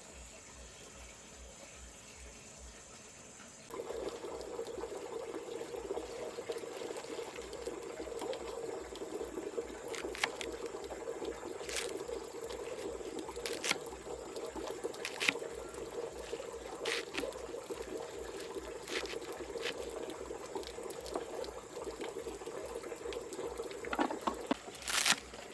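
Water running from a bamboo pipe faucet, starting suddenly about four seconds in and then flowing steadily, with scattered sharp ticks.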